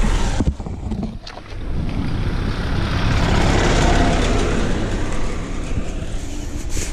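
A road vehicle passes close by. Its noise swells to a peak about four seconds in and then eases, over a low rumble.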